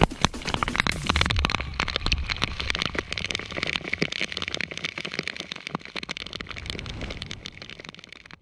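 Water sound picked up by an action camera in its waterproof housing underwater and at the surface: dense crackling and clicking over a low rumble of moving water, fading out near the end.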